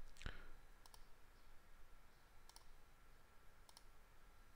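Faint computer mouse clicks over quiet room tone: three quick double ticks, each a button press and release, spread a second or so apart.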